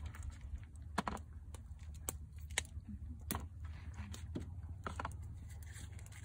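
Light, irregular clicks and crackles of food being handled by hand on a plate, about a dozen sharp ticks spread over several seconds, over a low steady rumble.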